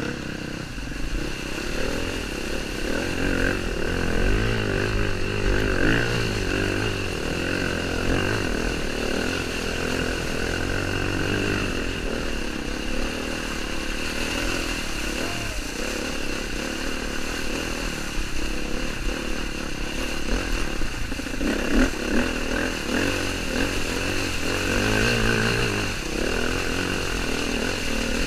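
KTM dirt bike engine running steadily through a long water crossing, with water splashing off the front wheel and the throttle varying a few times.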